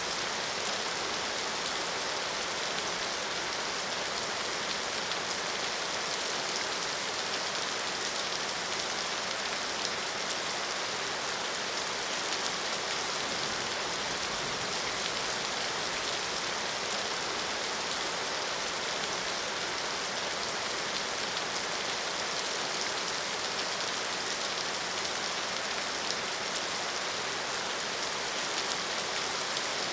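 Steady rain falling, an even hiss of many drops with fine pattering, unchanging throughout.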